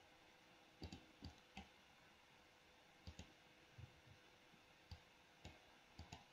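Faint computer mouse clicks, about a dozen at irregular intervals, some in quick pairs, over near silence.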